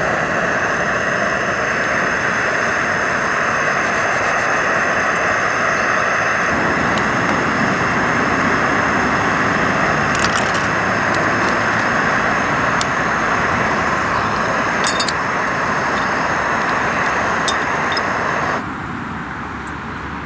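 Integrated gas canister stove burning at full flame, a steady loud hiss under a pot of heating water; a deeper rumble joins about six seconds in. The hiss cuts off suddenly near the end as the gas is turned off, with a few light clicks of lid and spoon before it.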